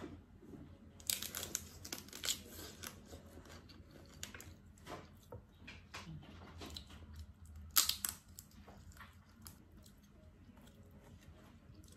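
Steamed crab shell being cracked and pulled apart by hand, with chewing between, a run of short sharp cracks and crunches. The loudest cracks come about a second in and again near eight seconds.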